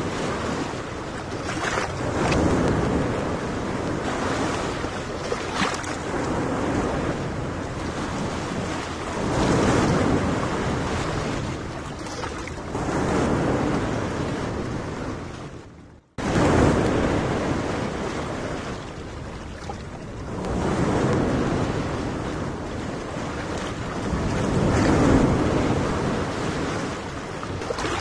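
Small waves washing onto a sandy beach, the sound swelling and falling back every few seconds, with wind on the microphone. The sound cuts out for a moment about halfway through, then resumes.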